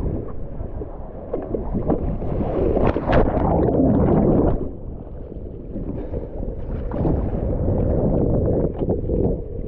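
Water splashing and sloshing around a paddled foil board, with wind buffeting the microphone; it swells louder for a second or two about three seconds in.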